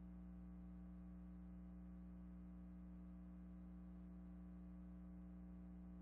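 Near silence with only a faint, steady electrical hum of evenly spaced tones, unchanging throughout.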